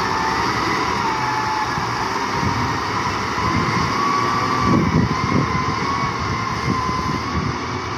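Diesel engine of a LiuGong wheel loader running under load as it drives with a full bucket, a steady low rumble with a thin, slowly wavering whine over it.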